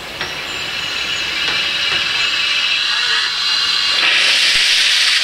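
Steam hissing from narrow-gauge steam locomotives standing in steam, swelling to a loud hiss about four seconds in.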